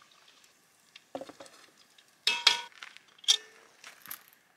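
Metal tongs clattering against a metal pan and pot while fried food is lifted out and set down: a handful of sharp clinks, the loudest about two and a half seconds in, some ringing briefly.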